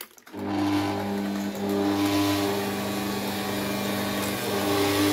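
Electric mixer whipping cream, switching on about a third of a second in and then running steadily at one speed.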